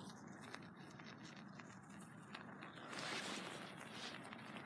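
Faint noise of a UCO Stormproof match flame and a cotton ball catching fire and burning, swelling briefly about three seconds in.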